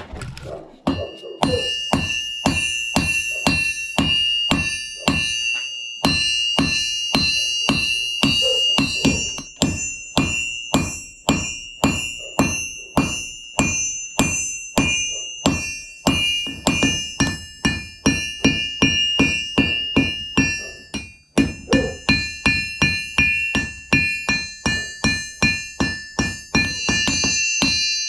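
Hand hammer striking steel on an anvil in a steady rhythm of about two to three blows a second, each blow leaving a ringing tone, with short pauses about six and twenty-one seconds in: hand forging of a knife blade.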